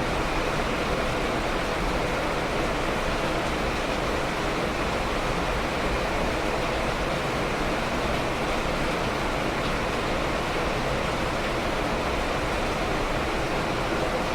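Steady rain falling, an even, unbroken hiss with no single drops or other sounds standing out.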